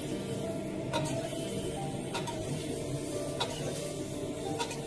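Metal spatula knocking and scraping against a steel wok while stirring soaked bean curd sticks in marinade, a sharp clink about once a second.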